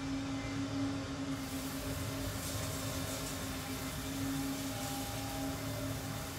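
Steady low hum of a running motor or fan, holding one even tone, with a few faint light ticks.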